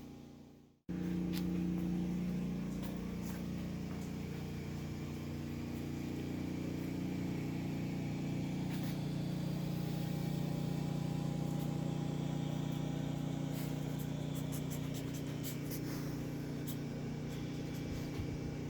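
A motor or engine running steadily at an even pitch, starting abruptly about a second in, with a few faint clicks over it.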